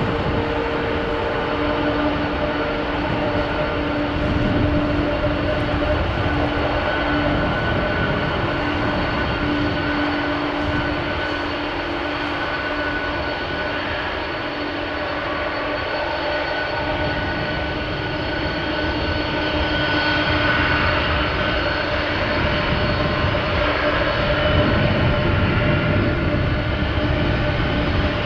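Jet engines of a Boeing 747-400 freighter running at low taxi thrust as the airliner turns onto the runway: a steady jet rumble with a high whine, growing a little louder near the end.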